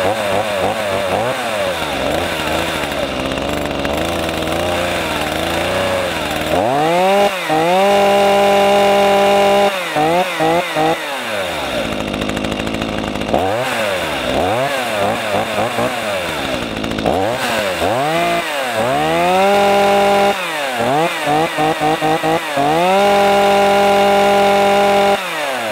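Chainsaw engine being revved over and over. It runs with a wavering pitch at first, then climbs to a steady high pitch held for two to three seconds, breaks into quick throttle blips, and drops back before revving up again. The cycle repeats several times.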